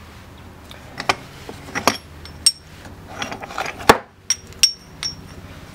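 Metal model-locomotive parts clinking and knocking as they are handled and set down on a table, some strikes with a short metallic ring. There is a brief scrape about three seconds in, and the loudest knock comes just before four seconds.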